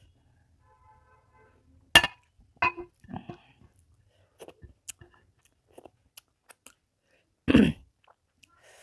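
Close-miked eating sounds of a person finishing rice and fish curry: quiet chewing, lip smacks and scattered mouth clicks, with one loud sharp click about two seconds in and a short voiced sound, falling in pitch, near the end.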